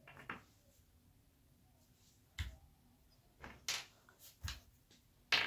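Handling sounds: scattered light knocks and clicks as small plastic toy figures are moved about by hand on a wooden desk, a handful of separate taps with the loudest near the end.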